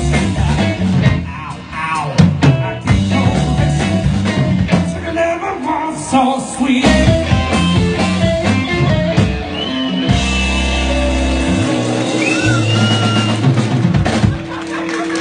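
Live blues band of electric guitar, electric bass and drum kit playing, with busy drumming for about ten seconds that gives way to a long held chord with bent guitar notes over it, the song's closing held chord, and a sharp hit right at the end.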